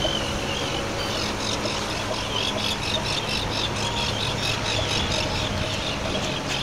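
Seabirds calling in rapid, shrill cries, yelling at each other, starting about a second in, over the steady low hum of a passing center-console boat's outboard motor and the wash of water and wind.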